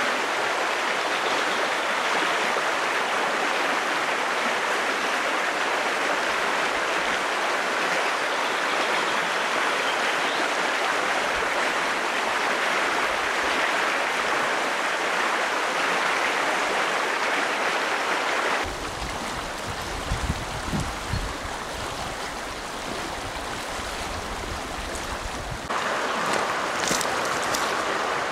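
Shallow trout stream rushing steadily over rocks and rapids. About two-thirds of the way through, the rushing turns quieter for roughly seven seconds, with low rumbles underneath, then comes back at full strength.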